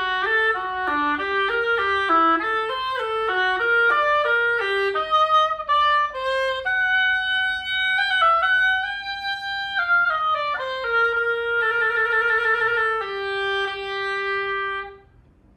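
Oboe playing a melody, quick short notes at first, then slower held notes, one of them with vibrato, ending on a long held note that stops near the end.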